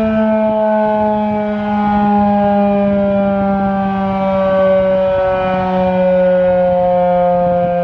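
Federal Sign and Signal Model 3 outdoor warning siren sounding its test: several tones together, slowly falling in pitch, the loudness swelling and fading every couple of seconds as the siren rotates.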